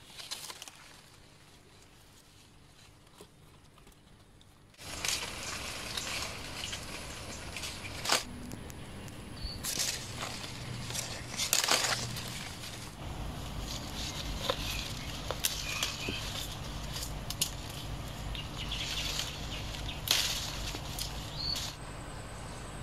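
Mango-tree leaves and branches rustling as the fruit is handled and picked, with scattered snaps and knocks. It starts about five seconds in, after a quieter stretch.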